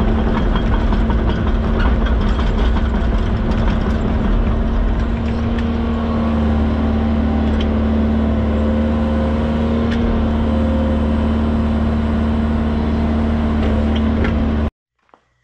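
Tracked excavator's diesel engine and hydraulics running steadily, with a constant whine and a heavy rumble, plus scattered knocks and clicks. The sound cuts off suddenly near the end.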